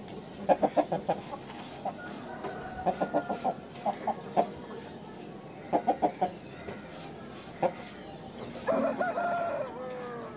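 Aseel roosters clucking in short runs of three to five quick notes, then, near the end, one rooster crowing once, a short crow that drops in pitch as it ends.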